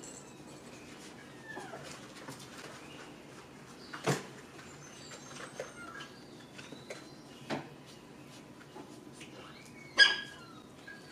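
Young toy poodle puppies giving small high squeaks and whimpers as they play and wrestle. A few sharp clicks come through, and a louder sharp cry sounds near the end.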